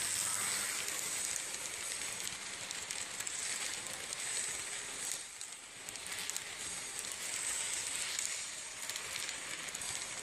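HO scale model freight cars rolling past on metal track: a steady rolling hiss from the small wheels, scattered with many small clicks, under a steady high whine. It eases briefly about five and a half seconds in.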